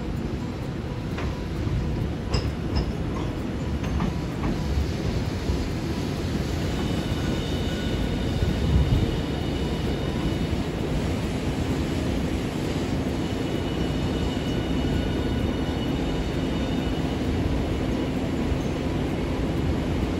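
Hiroden 5200-series Green Mover APEX low-floor tram rolling into the station: a few clicks from the wheels over the track early on, then a steady electric whine from its traction equipment over the rumble of the wheels as it pulls in alongside the platform.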